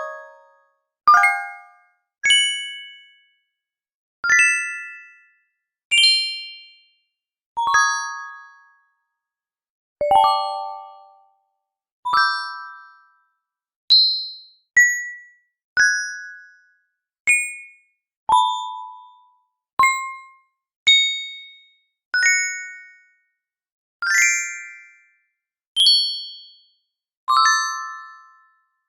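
A run of short notification bell chimes played one after another, one every second or two, each a different pitch and timbre. Each is a struck, ringing ding of one or several tones together that fades out within about a second.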